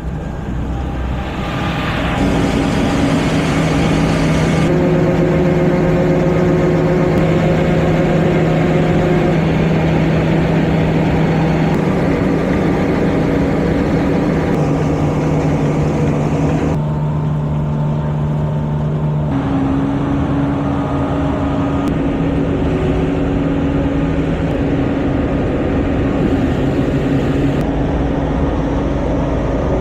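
Large vehicle engine running steadily, its pitch and tone jumping abruptly to new levels several times.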